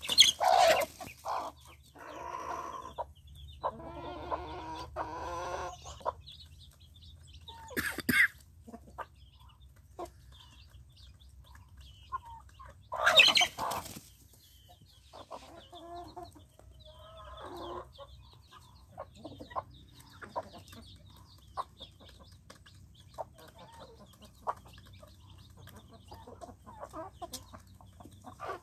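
Backyard hens clucking, with chicks peeping faintly and high, and a few sudden loud outbursts from the flock, the loudest about 13 seconds in.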